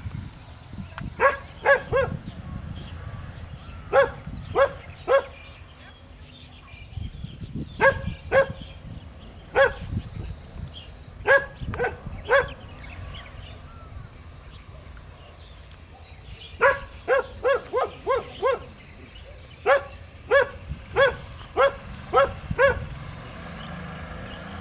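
Feral puppies barking in short, high-pitched yaps, coming in bursts of two to six barks with pauses between.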